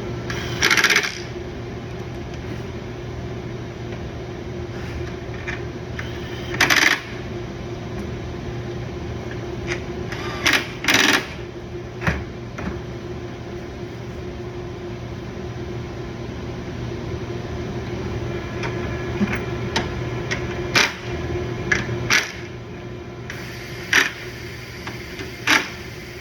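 Short, sharp metallic clinks of hand tools and bolts being handled during bumper assembly, about eight scattered through the stretch, over a steady background hum.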